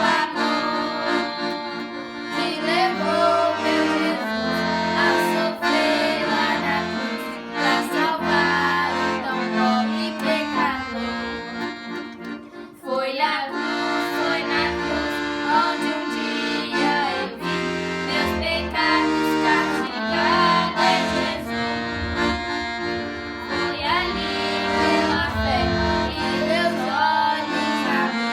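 Accordion playing an instrumental worship tune: a melody over held chords, with low bass notes underneath. There is a short break in the playing about halfway through.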